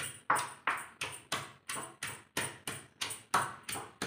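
Stone pestle pounding soaked Byadgi red chillies in a stone mortar, a steady rhythm of about three strikes a second.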